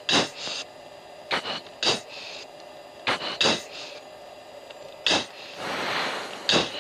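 Quick, sharp breaths through an F-16 passenger's oxygen mask, picked up by the mask microphone over the intercom: short rushing hisses, several in close pairs, with a longer breath near the end, over steady cockpit noise.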